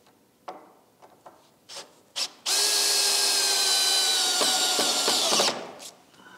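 A power drill working into a wooden roof beam, running steadily for about three seconds, its pitch dropping a little in steps toward the end as it comes under load, then stopping. A few light clicks come before it starts.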